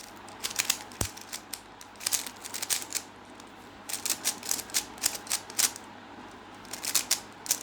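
Plastic 3x3 Rubik's cube being scrambled: layers turned rapidly, clicking and clacking in quick bursts with short pauses between them.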